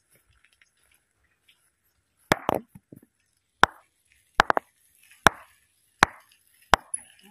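A hand-held stone knocked against a boulder: about eight sharp clacks starting a couple of seconds in, some in quick pairs. Each dies away at once with no ringing tone, so this boulder does not ring.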